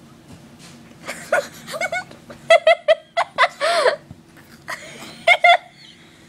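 Children giggling and laughing in short high-pitched bursts, starting about a second in and loudest about halfway through.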